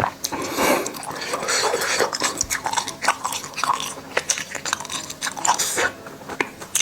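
Close-up chewing of wax bottle candy, the wax shell crackling with many small sharp clicks between the bites.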